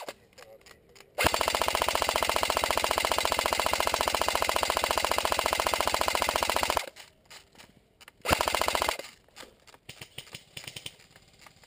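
Airsoft AK-74S replica firing full-auto: a long burst of about five and a half seconds starting a second in, then a short burst of about half a second, each a fast, even rattle of shots.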